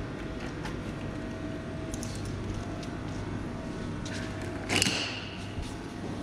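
A red power plug is pulled from the ice cream van's socket, unplugging the cord that keeps its freezers cold: a few faint clicks of handling, then one sharp clack with a short ring near the end, over a steady low hum.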